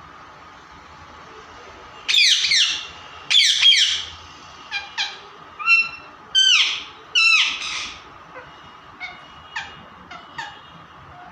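Pet parrot calling: a run of harsh squawks starting about two seconds in, the first two loudest and longest, followed by shorter, sharper calls that drop in pitch.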